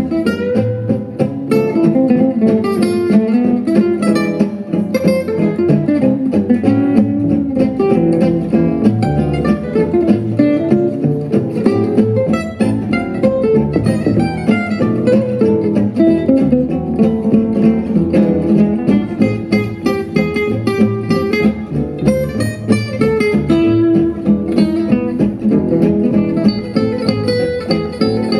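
Live gypsy jazz on Selmer-style acoustic guitars and double bass: a lead guitar plays quick single-note runs over chugging rhythm guitar and a plucked walking bass line, with the clarinet resting.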